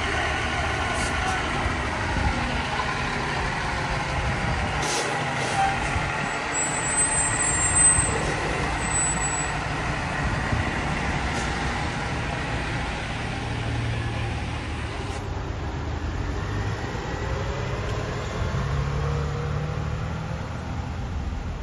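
Pierce fire engine's diesel engine running steadily at the roadside, with a couple of short air hisses about one and five seconds in.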